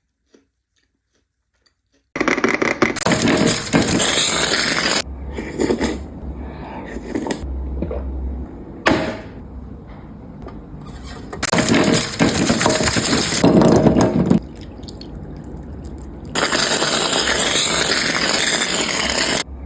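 Close-miked crunching and chewing of Ferrero Rocher chocolates (wafer shell and hazelnut), loud, coming in three long stretches that start and stop abruptly, with quieter mouth sounds between. It begins after about two seconds of near silence.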